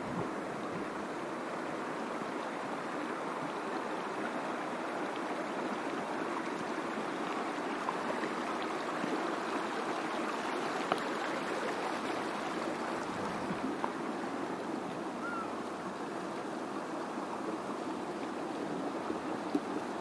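A shallow river flowing over rocks, making a steady, even rushing sound.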